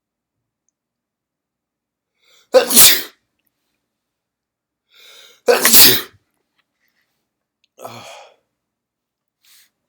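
A person's induced sneezes: two loud, wet sneezes about three seconds apart, each after a short intake of breath, then a quieter breathy sound.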